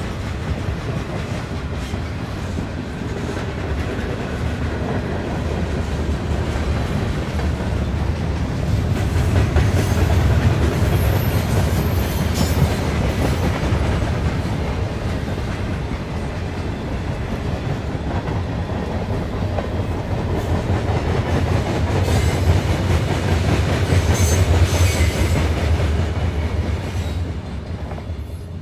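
Two steam locomotives double-heading a train, Strasburg Rail Road's No. 89 (a 2-6-0) and No. 90 (a 2-10-0), working steadily with rail clatter. The sound swells louder about ten seconds in and again near the end.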